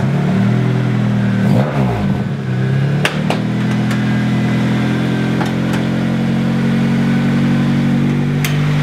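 Acura Integra's stock non-VTEC Honda B20 four-cylinder engine idling steadily, with a few sharp clicks about three seconds in and again near the end.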